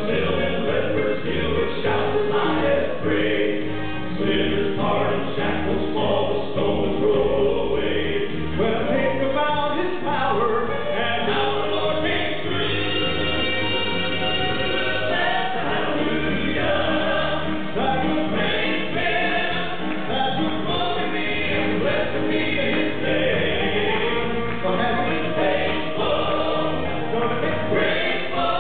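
Southern gospel male quartet singing a hymn medley in four-part harmony, amplified through handheld microphones.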